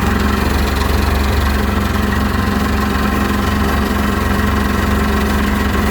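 Sea-Doo GTS two-stroke twin engine running steadily at idle and loud, firing on only one cylinder because the front cylinder has no compression.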